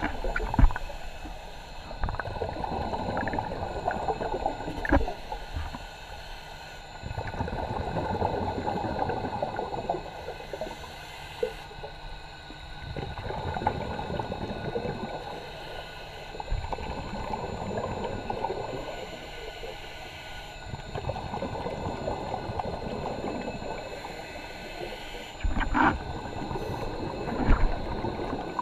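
Scuba divers' exhaled bubbles heard underwater: gurgling surges lasting a few seconds that come back with each breath. A few sharp knocks stand out, one near the start and two near the end.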